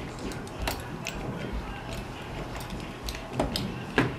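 Light scattered ticks and clicks of a hand driver working a bolt loose on a Ninebot Mini scooter's frame, with a louder click near the end, over a steady low hum.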